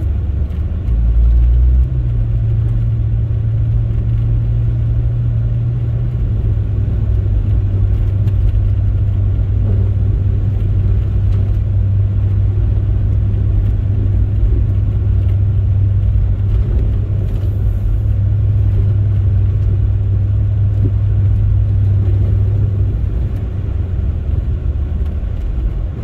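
Steady low drone inside the cabin of a Chrysler 300C with its Hemi V8, cruising with tyres running on a snow-covered road. There is a brief deeper rumble about a second in.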